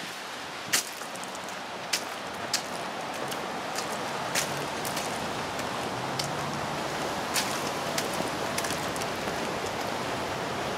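Steady outdoor background hiss that builds slightly over the first few seconds, with a faint low hum in the middle and a handful of sharp, irregular clicks scattered through it.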